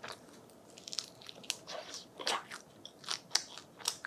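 Close-miked bites and chewing of crisp Vietnamese grilled rice paper (bánh tráng nướng), a run of irregular crackly crunches.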